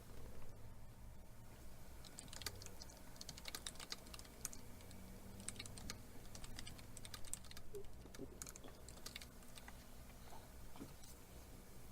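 Faint, irregular small clicks and crackles from hand work on a Samsung Galaxy S5: the old LCD being pried and broken out of the phone's frame.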